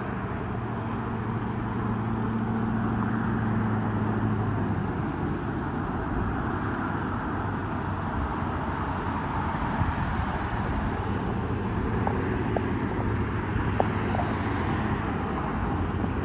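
Street traffic: cars driving past on the road. A low engine hum runs through the first few seconds, and the road noise swells around the middle as another vehicle goes by.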